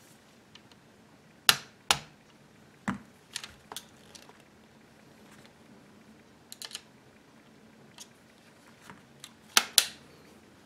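Metal parts of a BRS-99 carbine clicking and clacking as they are handled and fitted together: the wire folding stock and its end piece are going onto the receiver. There are irregular sharp clicks, with the loudest a single one about one and a half seconds in and a quick pair near the end.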